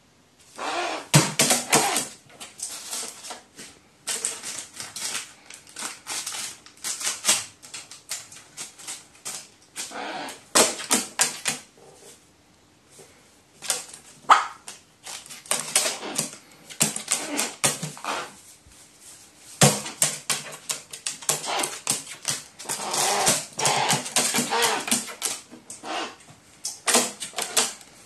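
A pet crow crinkling and pecking a paper balloon in quick, irregular bursts of crackling and rustling. About halfway through it gives one short, sharp 'wa!' call.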